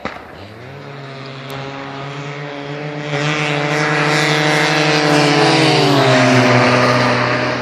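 Racing snowmobiles at full throttle, their engine note growing steadily louder as they approach, then dropping in pitch as they pass close by about six seconds in.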